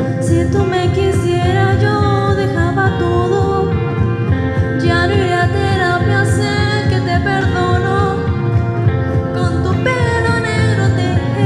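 A young woman singing a Spanish-language pop song into a handheld microphone over a karaoke backing track, the voice gliding through sustained notes.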